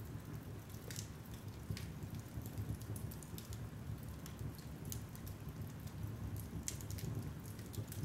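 Wood logs burning on a fireplace grate, crackling and popping at scattered moments over a low steady rumble, with a small cluster of pops near the end.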